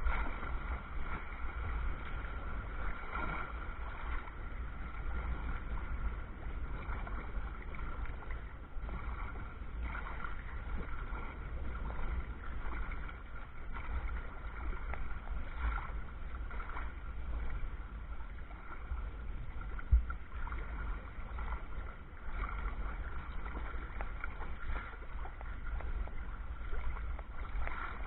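Water sloshing and splashing around a paddled sea kayak in small swells, with a steady low rumble of wind on the microphone. A single sharp thump stands out about two-thirds of the way through.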